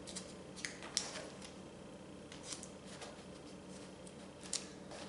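Faint, scattered crackles and clicks of plastic release film being peeled off the adhesive face of a gator foam board, the sharpest about a second in and near the end.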